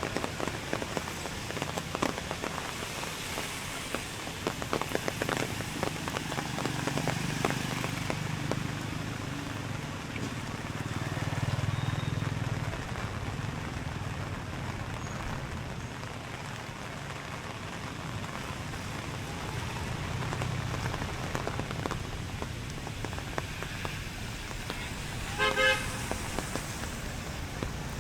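Steady rain falling with passing traffic rumbling, and a short vehicle horn toot near the end.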